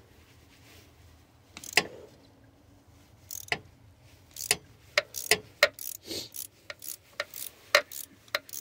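Ratchet wrench with a socket extension clicking as it loosens a spark plug on a 1992 Dodge Ram B250 van engine. Sharp, irregular clicks: one at first, then coming in quick runs through the second half.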